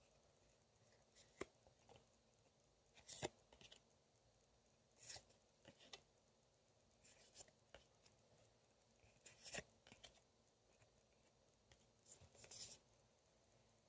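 Faint sound of glossy photocards being shuffled by hand: short sliding rasps and soft clicks as each card is slid off the stack, at irregular intervals of a second or two.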